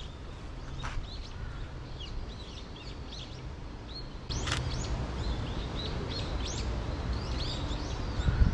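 Birds chirping: many short, high calls overlapping, over a steady low rumble of background noise that grows louder about four seconds in.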